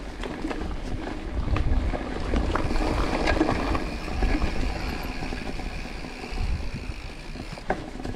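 Mountain bike rolling down a dirt and grass trail, with wind buffeting the microphone and tyres running over the ground. Scattered clicks and rattles come from the bike over the bumps.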